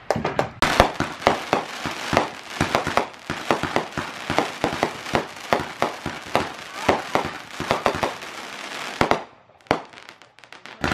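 Fireworks going off: a fast, irregular run of sharp crackling pops for about nine seconds, which thins out to two last single pops near the end.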